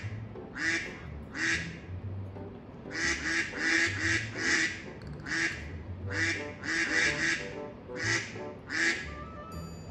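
A duck quacking repeatedly: about fourteen short quacks, some single and some in quick runs of three or four.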